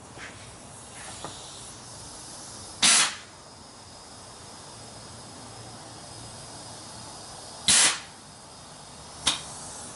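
Compressed air blown in short blasts from an air-hose nozzle into an automatic transmission's fluid passage during an air check: two loud bursts about five seconds apart, each about a third of a second, and a shorter one near the end.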